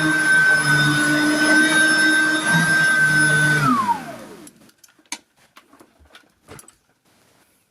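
Riccar vacuum cleaner motor running with a steady high whine over a low hum. About three and a half seconds in it is switched off and the whine falls away as the motor spins down, followed by a few light clicks and knocks.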